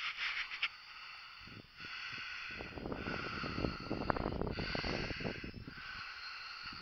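A person breathing close to the microphone, in and out in spells of about a second, with wind buffeting the microphone in the middle.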